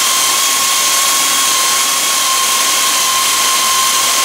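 Power drill running continuously at high speed against a pickup's steel cab door: a constant whine over a steady hiss, sagging very slightly in pitch.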